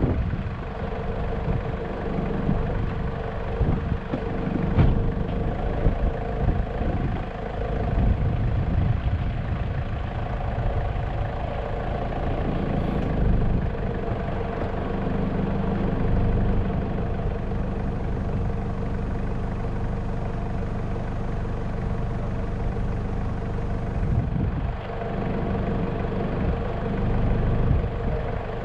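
Car engine running, idling and then driving along a dirt road, with a steady low rumble.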